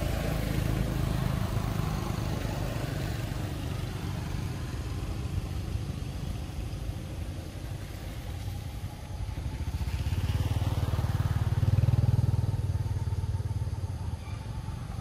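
A motor vehicle's engine running, a low rumble that swells louder about ten seconds in and eases off near the end, with a brief rising whine as it builds.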